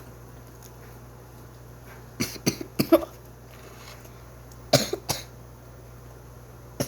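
A person coughing in short sudden fits: four quick coughs about two seconds in, two more about five seconds in, and one near the end. It is the coughing of someone whose food went down the wrong way.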